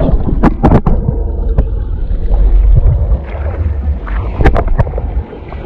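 Boat moving slowly through the water: a heavy low rushing rumble of water and wind on the microphone, with a few sharp knocks or splashes in the first second and another pair about four and a half seconds in.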